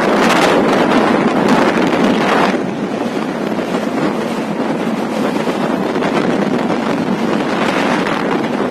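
Floodwater rushing, a loud steady roar of noise that eases a little about two and a half seconds in.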